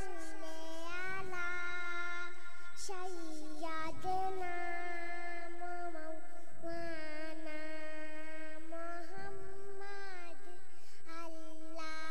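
A young girl singing a devotional kalaam (Urdu religious poem) into a microphone, in long held notes with short breaths between phrases every few seconds.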